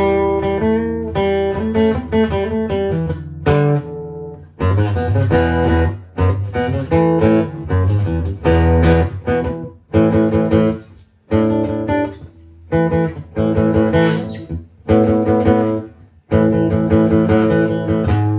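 Acoustic-electric guitar played through an amplifier: chords and picked notes in short phrases, with brief breaks between them.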